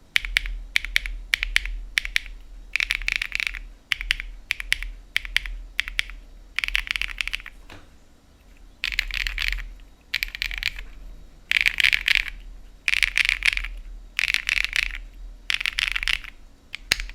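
Typing on a Jris75 mechanical keyboard with BSUN x KeysU Bunny linear switches: bursts of rapid keystrokes about a second long, alternating with pauses and slower single key presses.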